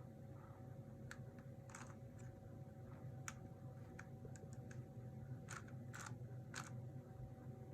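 Faint, irregular clicks of a 3x3 speed cube's plastic layers being turned by hand, over a steady low hum.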